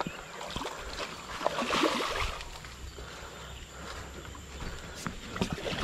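A hooked fish splashing and thrashing at the surface of a river, loudest about two seconds in, with smaller splashes around it.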